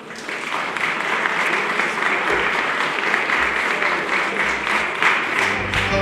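Applause from a room of people, starting just after the opening and running on steadily. Music comes in near the end.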